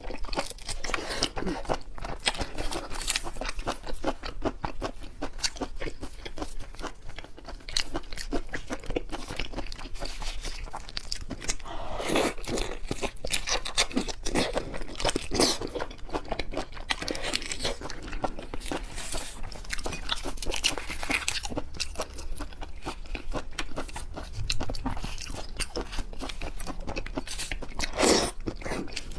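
Close-miked eating of seafood: continuous crunching, biting and chewing, a dense run of irregular crackles and wet clicks.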